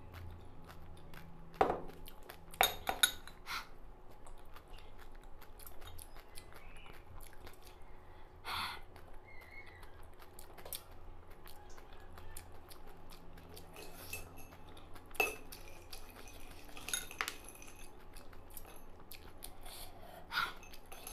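A few sharp, isolated clicks and clinks of glass dishes on a wooden table, with ice cubes clinking in a small glass bowl near the end.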